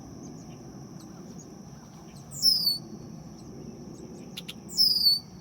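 A bird calling twice, each a short, loud call sliding downward in pitch, about two and a half seconds apart. A steady high thin tone runs underneath.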